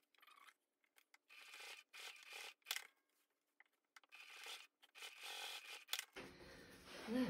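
Faint rustling and scraping of stiff waxed canvas in short, irregular bursts as hands slide and reposition a bag panel and a strap on the sewing table.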